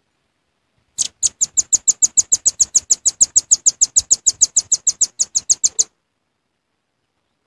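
Velvet-fronted nuthatch call used as a bird-trapping lure: a rapid, even trill of sharp, high chips, about eight a second. It starts about a second in and stops abruptly after about five seconds.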